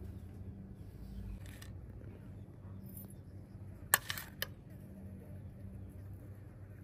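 A metal spoon clinks twice against a ceramic plate about four seconds in, over a low steady hum.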